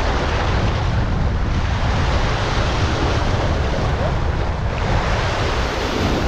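Steady wind rushing over the microphone, mixed with sea water washing and lapping.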